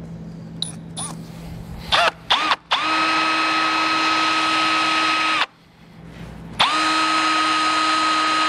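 Cordless drill with a half-inch bit boring a hole through a vehicle's bumper support. After a couple of short trigger blips, the motor spins up quickly and runs at a steady whine for about three seconds. It pauses briefly, then spins up again and runs steadily.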